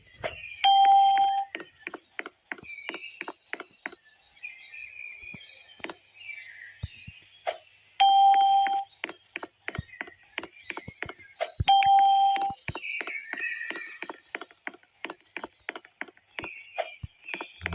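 Quiz-style sound effects: fast, even ticking, about four ticks a second, with three loud single-pitch beeps, each under a second long, near the start, about 8 seconds in and about 12 seconds in, and chirpy sounds between them.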